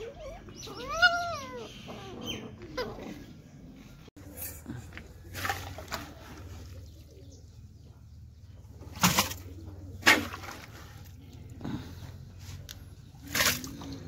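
A puppy gives one short whine that rises and falls, during rough play with another puppy. Then a metal bowl knocks sharply against a pot of soaked pig feed about five times, as it is picked up to scoop the feed.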